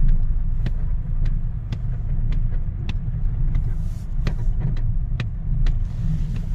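Short, sharp, rubbery-sounding creaks, about two a second, from the front-left suspension or steering of a Skoda Octavia A5, over the steady low rumble of the car heard from inside the cabin. The creak comes with the steering turned slightly right while the throttle is eased on and off; its cause is unknown, as a workshop found nothing.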